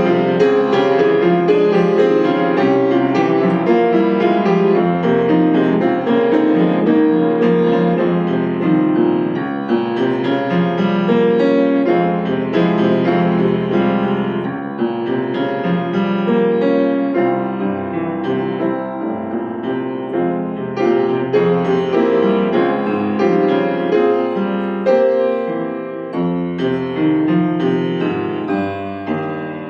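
Solo piano playing a flowing original piece in dense, overlapping notes, getting gradually softer over the last several seconds as it winds down.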